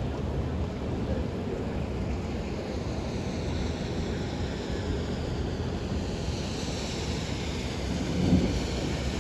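Steady rush of wind-driven rain in a strong thunderstorm, with a low rumble underneath and the hiss growing stronger over the last few seconds. A brief louder bump comes about eight seconds in.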